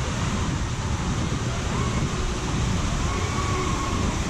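Steady rush of water running down a water slide and its splash-out lane. Wind buffets the microphone.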